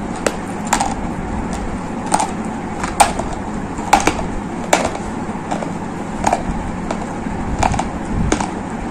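Dry gray clay being bitten and chewed, giving sharp, crisp crunches at irregular intervals of roughly one a second. A steady background hiss runs beneath them.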